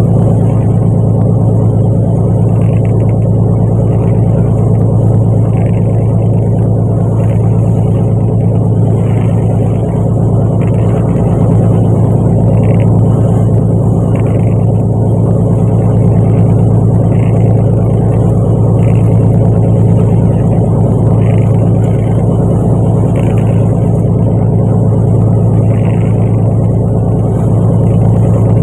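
A fishing boat's engine running at a steady, loud hum, with faint short sounds repeating every second or two.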